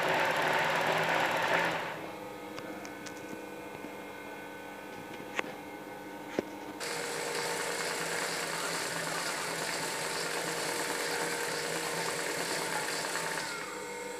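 Juki embroidery machine stitching at speed for free-motion embroidery. About two seconds in it drops to a quieter steady hum with two sharp clicks, then runs at full speed again from about seven seconds in, easing off near the end.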